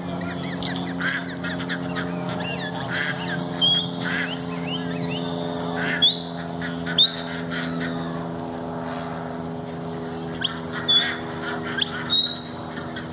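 A small flock of white ducks quacking in short, repeated calls as a herding dog moves them, over a steady low hum.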